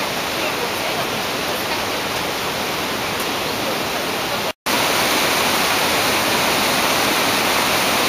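Kivach waterfall on the Suna River rushing steadily. About halfway through there is a split-second dropout in the sound, after which the rush is slightly louder.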